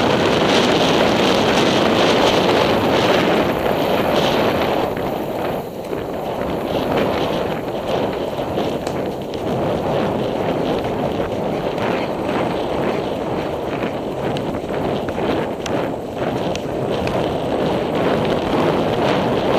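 Wind rushing over a helmet camera's microphone as a horse canters, with irregular knocks of its hoofbeats through the noise, more distinct in the second half.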